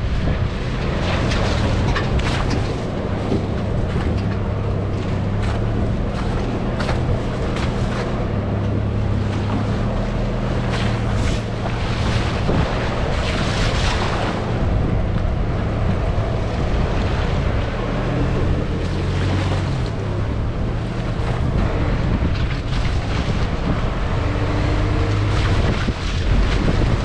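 GMC Canyon pickup's engine running steadily while the truck is driven in four-wheel drive over soft sand, with wind buffeting the microphone and scattered knocks and rattles from the bumps.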